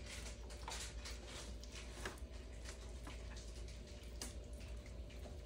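Faint handling sounds as a raw turkey is prepared in a tray: a few scattered light clicks and taps over a steady low hum.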